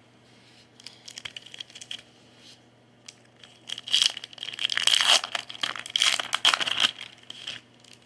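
Foil wrapper of a baseball card pack crinkling as it is torn open, faint at first and then loud and dense for about four seconds from about halfway in.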